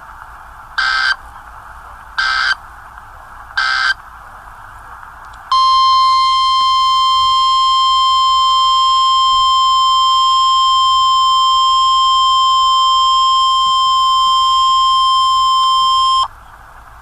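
Emergency Alert System warning over weather radio: three short bursts of digital SAME header data about a second and a half apart, then the steady high attention tone held for about ten seconds. It comes through a radio receiver, with a faint hiss underneath.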